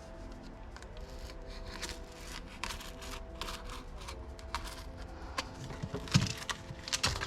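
Sound-deadening sheet being trimmed and handled: irregular crinkling, rustling and small cutting snips, with a cluster of sharper crackles near the end.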